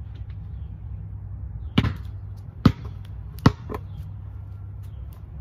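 A basketball bouncing on a concrete court: three sharp bounces about a second apart, then a lighter fourth, over a steady low outdoor rumble.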